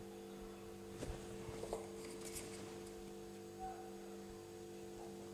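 Faint background music: a soft chord held steady, with a couple of faint light ticks about a second in.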